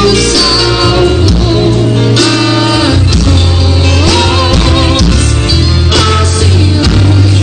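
A song with singing over instruments and a steady, strong bass line.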